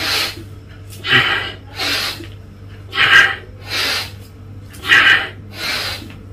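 A man breathing forcefully and rhythmically through nose and mouth while doing squats, about one sharp, noisy breath a second, alternating breath in and breath out in time with each rise and descent.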